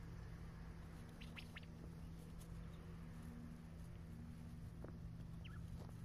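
Quail giving faint, very short high peeps while foraging, a few about a second in and more near the end, over a steady low hum.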